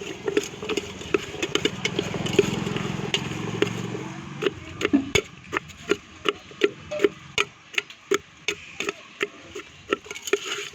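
A utensil knocking steadily against a bowl, about two or three knocks a second, as the spiced guava pieces are mixed. A motor vehicle's engine hums past in the first half.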